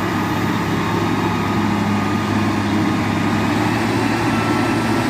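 Motor grader's diesel engine running steadily, a low, even hum.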